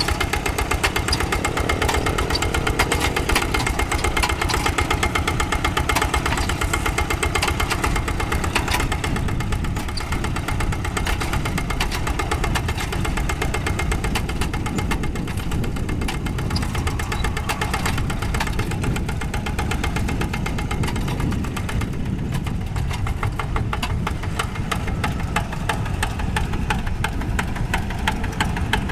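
Two-wheel walking tractor's diesel engine running steadily with a rapid, even knocking beat while it pulls a plough.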